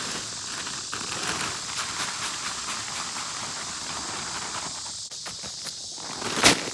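Footsteps and rustling outdoors, a busy run of small clicks and scuffs, then one sharp knock about six and a half seconds in.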